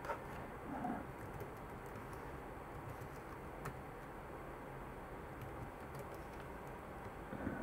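Computer keyboard being typed on, a few faint, scattered key clicks.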